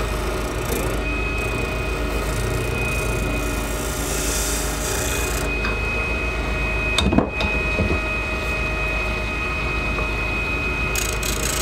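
Small wood lathe running steadily with a constant hum and thin whine, while a hand turning tool scrapes and cuts the spinning acrylic duck-call blank in spells, heaviest in the first half. A single sharp knock comes about seven seconds in.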